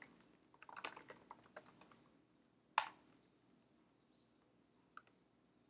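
Faint typing on a computer keyboard: a quick run of keystrokes entering a short terminal command, then a single louder key press near the middle and one faint tap later.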